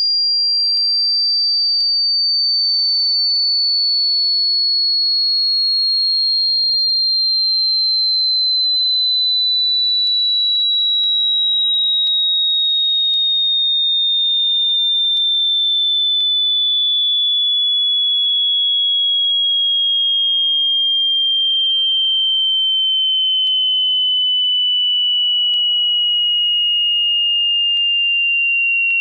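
Hearing-test sine tone sweeping slowly downward: a single steady, high, pure tone falling gradually in pitch at an even loudness.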